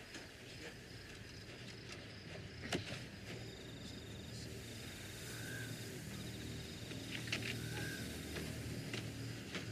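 Night-time outdoor ambience: crickets trilling in rapid pulsed chirps, with a few short higher chirps and a couple of sharp clicks over a low steady drone.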